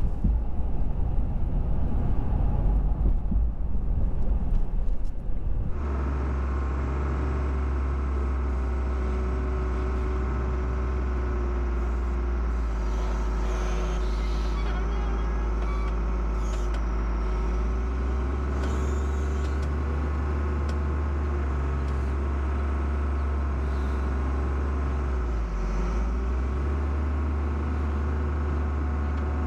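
Road rumble inside a moving truck cab, then from about six seconds in the steady low drone of a loader's engine running as it carries a car on its forks.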